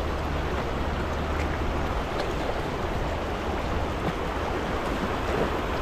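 River water running steadily over a shallow stream bed.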